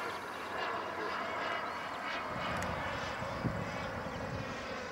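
Turbine engine of a radio-controlled model de Havilland Vampire jet flying overhead: a steady jet hiss and whine. A low rumble joins about halfway through.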